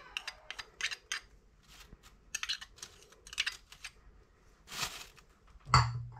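A spoon tapping and scraping against a small plastic cup as chopped hot pepper is knocked into a plastic bag, a string of light irregular clicks, with a couple of louder rustles near the end.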